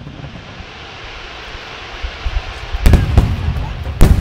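Fireworks display: a steady rushing hiss that builds for about three seconds, then deep booms of aerial shells bursting, with the sharpest bang about four seconds in.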